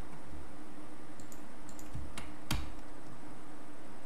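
A few scattered keystrokes on a computer keyboard, the clearest two close together about two seconds in, over a steady faint hum.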